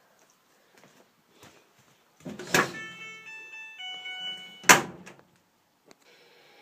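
A front-loading clothes dryer: a loud clunk from the door, then about two seconds of an electronic beeping tune from the control panel, ended by a sharp loud clack.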